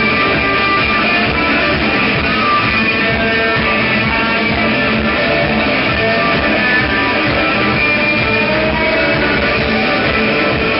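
Live rock band playing loud through a club PA, with several electric guitars ringing over bass and drums, heard from the crowd.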